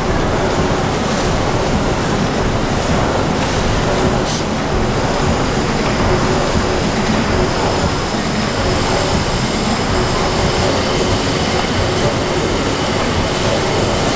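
Horizontal compound mill steam engine running steadily: a loud, even rumble and hiss of the moving crosshead, rods and rope-drive flywheel, with one short click about four seconds in.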